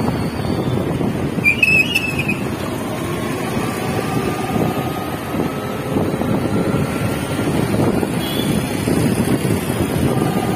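Wind buffeting the microphone of a moving motorbike, with vehicle and traffic noise beneath it. A short high beep sounds about two seconds in.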